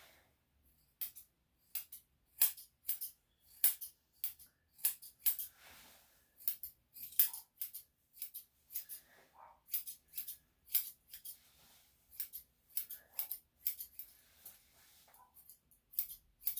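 Grooming scissors snipping through a small dog's long fur, a long run of quick, sharp snips at a few a second with brief pauses.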